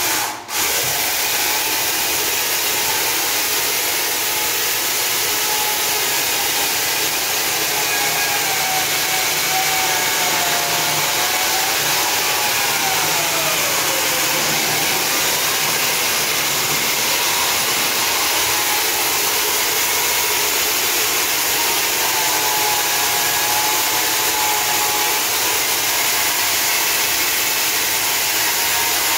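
Handheld diamond chain saw cutting into a concrete wall: a steady, loud grinding whine. It drops out for a moment just after the start, and its pitch wavers and sags partway through as the chain bites under load, then recovers.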